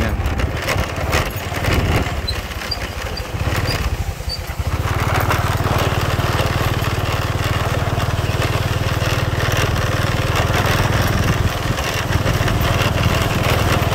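Small motorcycle engine running steadily while riding. It eases off briefly about four seconds in, then settles back to an even, steady hum.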